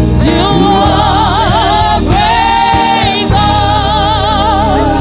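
Gospel worship song: a singer holds long notes with wide vibrato, backed by a band with a steady bass and other voices.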